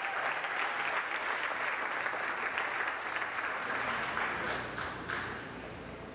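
Audience applauding, the clapping thinning out and dying down about five seconds in.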